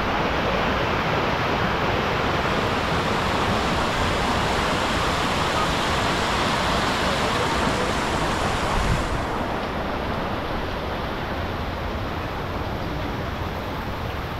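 River water rushing over shallow rapids: a steady, loud hiss. About nine seconds in, the highest part of the hiss drops away and it gets a little softer.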